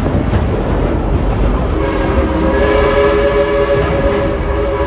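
Steam whistle of the coal-fired steam locomotive Engine 70 blowing one long chord, starting about two seconds in, over the steady rumble of the moving train.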